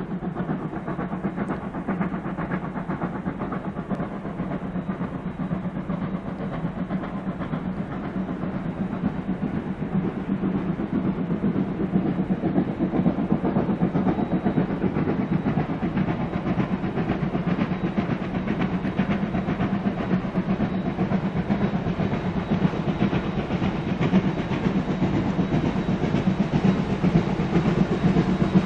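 Victorian Railways A2-class 4-6-0 steam locomotive working up a grade, its exhaust and running noise growing steadily louder as it approaches.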